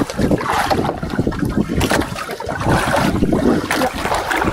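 Sea water sloshing and slapping against the side of a small fishing boat, with wind buffeting the microphone in irregular gusts.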